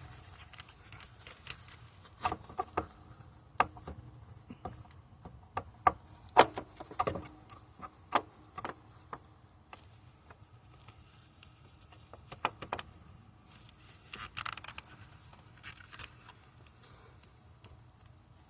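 Irregular metallic clicks, knocks and scrapes as a loosened starter motor is worked out of the engine bay past surrounding parts. The knocks come singly and in short clusters, with a brief rattling scrape about two thirds of the way in.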